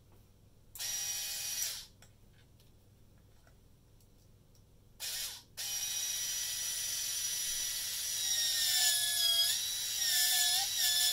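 Small DC brush motor and gear drive of a Dyson powerhead, run straight off a 12-volt supply, whining. It spins briefly about a second in, again briefly around five seconds, then runs on steadily. In the last few seconds its pitch sags and wavers as it is loaded, but it keeps running and does not cut out.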